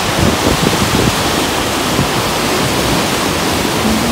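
The flooded Mississippi River pouring through a dam's gates and churning in whitewater below: a loud, steady rush of water from the river at very high flow.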